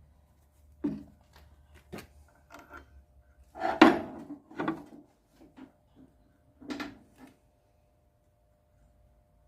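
A string of knocks and clatters from tools and brake parts being handled, the loudest about four seconds in and another near seven seconds.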